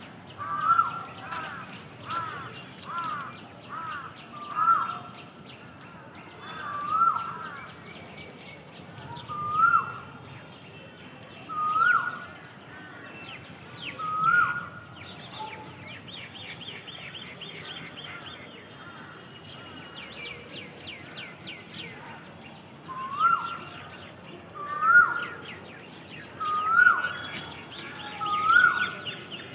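Birds calling outdoors. One bird repeats a short, loud call that rises and then drops. The calls come quickly at first, then about every two seconds, pause in the middle, and start again near the end. Fainter, higher chirps and trills from other birds sound underneath.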